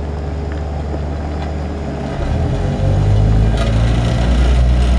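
Road roller's diesel engine running steadily, its note shifting and growing louder about two seconds in as it works up to move.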